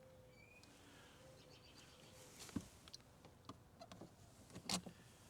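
Near silence with a few faint clicks and knocks, the loudest near the end.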